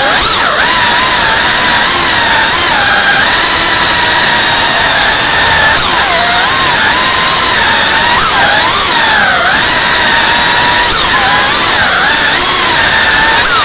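Tiny whoop micro FPV quadcopter's motors whining loudly, the pitch repeatedly rising and falling as the throttle changes in fast flight.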